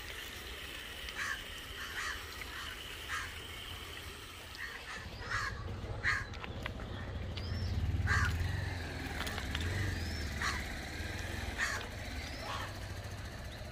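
Crows cawing repeatedly, short harsh calls about one a second, with small birds chirping now and then and a low rumble in the middle.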